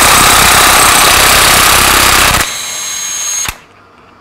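Cordless impact wrench hammering on a snowmobile's primary clutch retaining bolt. About two and a half seconds in the hammering stops and the tool spins on more quietly with a high whine as the bolt backs out, then cuts off suddenly about a second later.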